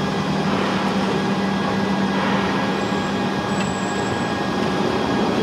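Steady mechanical running noise with a low, even hum.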